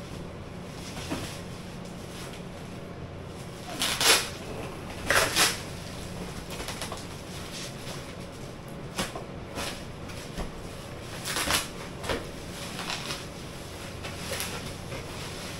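Parcels being unpacked by hand: a cardboard box's tape is cut and its flaps pulled open while plastic packaging is rustled. The result is scattered scrapes and rustles, the loudest a few seconds in, over a steady low hum.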